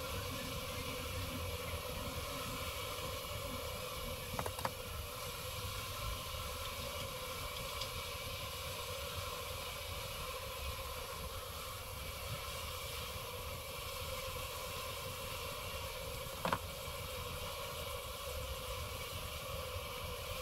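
A steady hum throughout, with two short knocks as a knife cuts honeycomb out of a wall hive: one about four seconds in, the other about sixteen seconds in.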